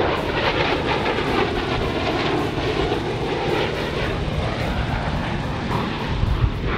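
An F/A-18 fighter jet's twin jet engines during a low pass in inverted flight: a loud, steady rushing noise with faint whining tones that bend in pitch.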